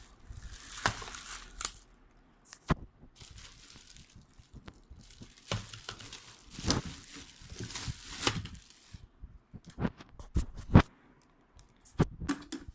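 Plastic packaging crinkling and rustling as vacuum cleaner parts are unwrapped and handled, with scattered clicks and knocks of hard plastic pieces. The loudest is a sharp knock about two seconds before the end.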